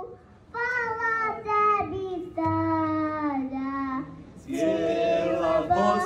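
A young girl singing a Bosnian ilahija into a microphone, in long held notes with short pauses between phrases.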